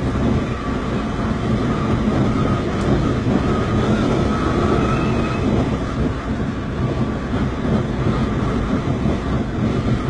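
Typhoon wind and rain buffeting a high-rise window: a loud, steady roar with a thin whistle that wavers up and down in pitch.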